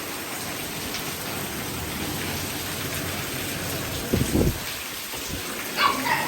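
Steady rain falling, with a dull low thump about four seconds in and a dog's short yelps near the end.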